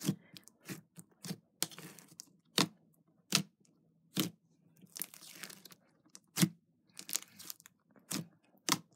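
Pink glitter slime being squeezed and poked by hand: about fifteen sharp pops and crackles at irregular intervals, with softer crackling between them.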